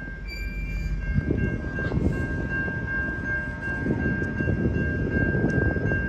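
Freight cars, a tank car and boxcars, rolling past at low speed: a steady rumble of wheels on rail with irregular clanks, and a steady high-pitched tone.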